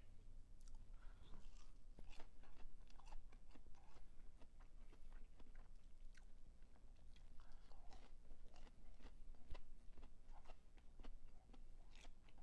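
A person chewing fast food close to the microphone, with many irregular crunchy clicks and mouth sounds.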